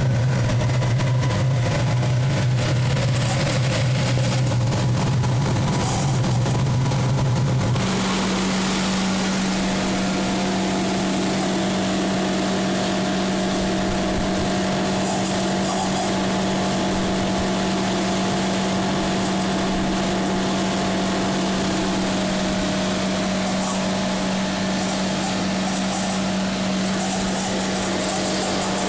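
Old Heylo K15 diesel forced-air heater running steadily, its fan and burner making a continuous mechanical hum. About eight seconds in the sound changes abruptly, the deep hum giving way to a slightly higher steady hum with a faint whine above it.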